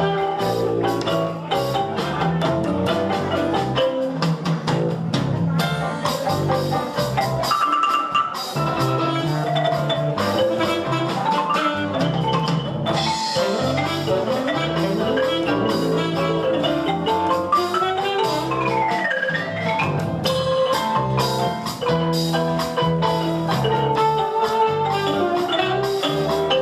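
Ranat ek, the Thai boat-shaped wooden xylophone, played in fast runs of notes with padded mallets, over sustained low notes from a keyboard.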